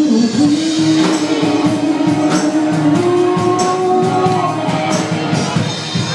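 Live rock band playing: drum kit with cymbals, electric guitars and bass, a tambourine, and a woman singing long held notes that step up in pitch about halfway through.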